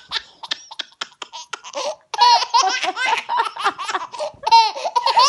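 A baby laughing: short breathy giggles at first, then from about two seconds in a loud, rapid run of high-pitched belly laughs.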